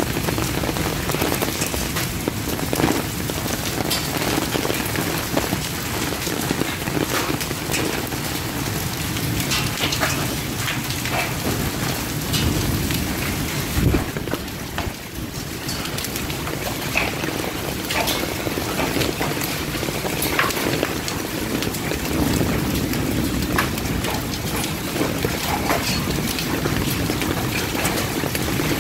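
Heavy rain mixed with large sleet pelting down in a steady downpour, thick with scattered sharp clicks of individual pieces striking. One louder knock comes about 14 seconds in.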